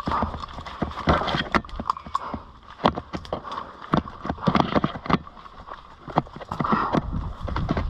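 Irregular footsteps with clattering gear, a run of uneven knocks.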